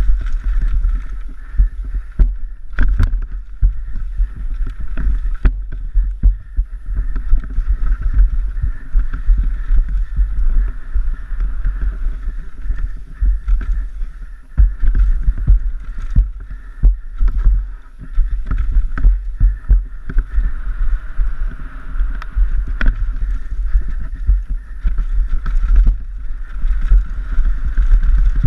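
Giant Glory downhill mountain bike running fast down a dirt trail: tyres rolling and skidding over dirt, with frequent sharp knocks and clatter from the bike over bumps. Heavy wind rumble on the helmet camera's microphone.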